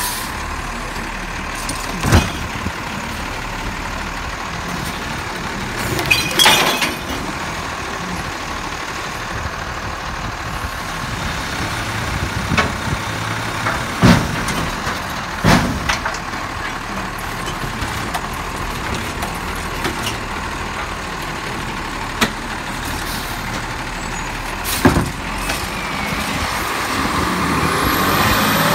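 Peterbilt automated side-loading garbage truck running while its hydraulic arm grabs, lifts and empties a recycling cart into the hopper. A string of sharp knocks and clatters is heard as the cart is gripped, shaken out and set back down. Near the end the truck grows louder as it pulls away.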